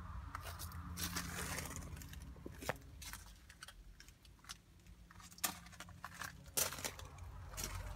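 Handheld phone-camera handling noise: a low rumble and rustling as it is moved around, with a few sharp clicks or knocks.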